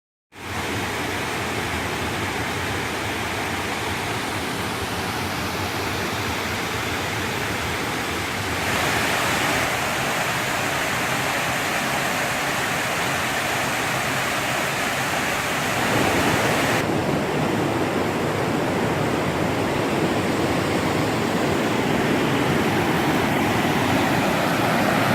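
Steady rush of whitewater from waterfalls and cascades on the North Fork French Broad River. The sound shifts and grows a little louder about a third of the way in and again about two-thirds of the way in.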